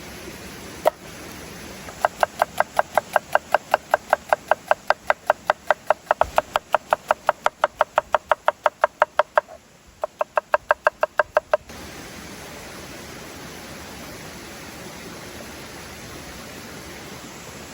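A knife chopping rapidly on a wooden cutting board, about four sharp knocks a second, in two runs with a short break between them.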